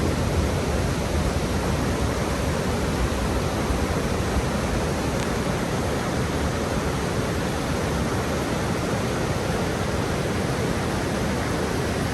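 Steady roar of Niagara Falls, the American Falls, an even rushing noise heavy in the low end.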